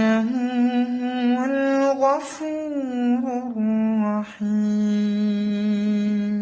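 Solo male voice reciting the Quran in melodic tajweed style, unaccompanied, drawing out a long ornamented vowel with pitch turns. There is a short breathy break about two seconds in and another past the middle, then a long steady held note.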